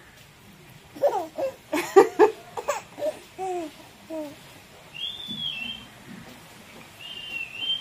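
A baby babbling and laughing in a run of short cries. Later come two brief, high, whistle-like chirps.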